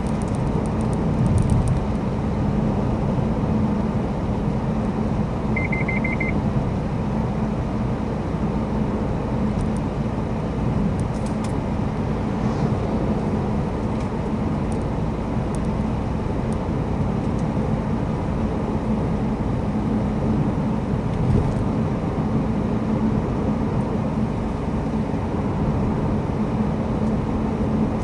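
Mazda CX-3 driving at a steady speed, heard from inside the cabin: even engine and road noise with a steady low hum. A short beep sounds about six seconds in.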